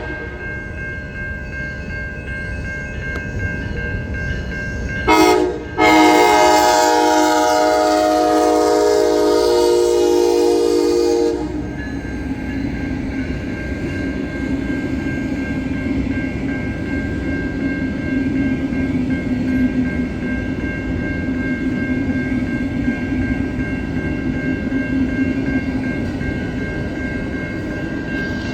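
Locomotive air horn sounding a short blast about five seconds in, then a long blast of several chords lasting about five seconds, followed by the steady rumble of the train rolling past.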